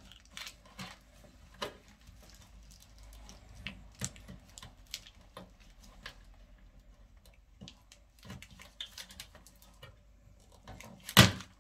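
Scattered small plastic clicks and scratches as a TV speaker's wire connector is worked loose from its socket on the main board, with one loud sharp click near the end.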